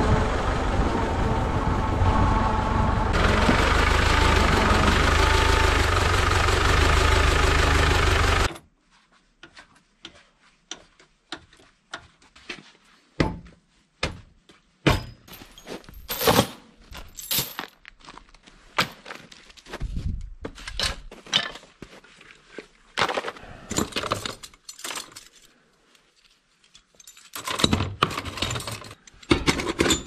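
Tractor diesel engine running steadily, stopping suddenly about eight seconds in. After that come scattered clinks and clanks of metal hardware, chains and steel shackles being handled and rummaged from buckets.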